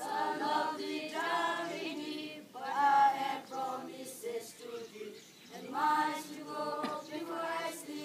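A group of students singing together in unison without accompaniment, in phrases with short breaks between them.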